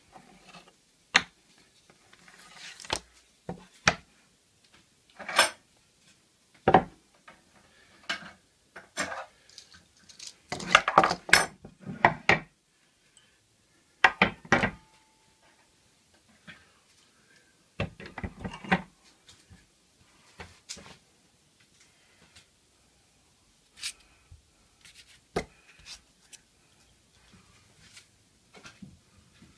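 Metal and wooden hand tools (a fret saw, bar clamps, a file, a hand-crank drill) being set down one by one on a workbench: irregular clinks, knocks and rattles, busiest around the middle and sparser near the end.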